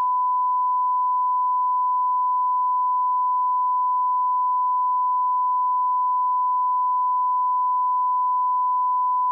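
Steady 1 kHz line-up test tone, one unbroken pure tone played with colour bars at the head of a tape for setting audio levels.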